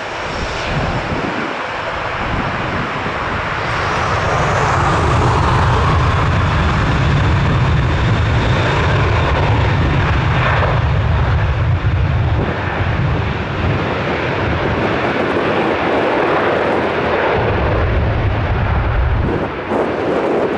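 Ryanair Boeing 737-800's CFM56 turbofan engines spooling up to takeoff thrust, with a whine that rises about four seconds in, then a loud steady jet roar with a deep rumble as the aircraft rolls down the runway.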